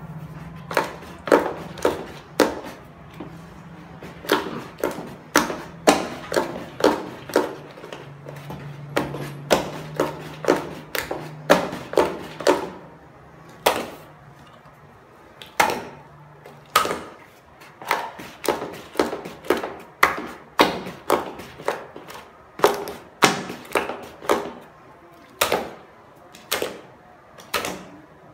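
Long wooden stick knocking against the side of a plastic bucket as thick cake batter is beaten by hand: repeated sharp knocks, about two a second, in runs with short pauses.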